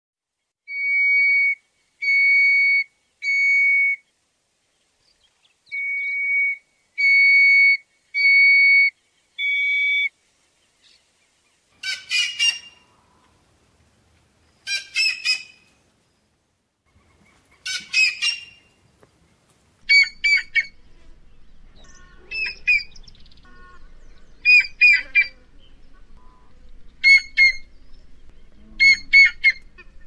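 Whistling heron calling: first a run of clear, level whistles, each about a second long, three then four. Then come three harsher, rougher calls a few seconds apart, and after that a string of shorter, quicker call notes over faint background noise.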